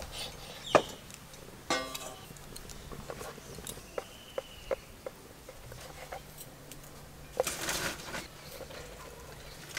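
Kitchen knife cutting a roll of soft dough into portions on a wooden board, the blade knocking on the board in a few sharp taps spread through. A brief high whistle about four seconds in, and a short burst of noise about seven and a half seconds in.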